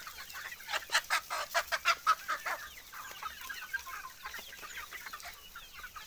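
A large flock of desi chickens clucking and calling, busiest and loudest between about one and two and a half seconds in, then a quieter chatter.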